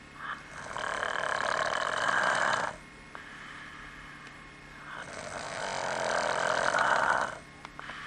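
A man snoring in his sleep: two long, loud snores of about two seconds each, the second building up gradually, with a quieter stretch between them.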